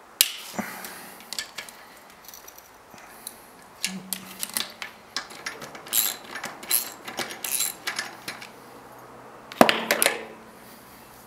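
Steel wrench clinking against bolts and a metal bracket as the bolts are loosened and taken out: irregular metallic clicks and taps, with a louder clank just after the start and another near the end.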